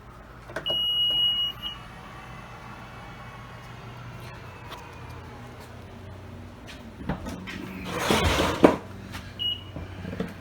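An electronic beep: one steady high-pitched tone lasting about a second, then a short blip. A loud scraping or rustling handling noise comes about eight seconds in, and a second short beep near the end.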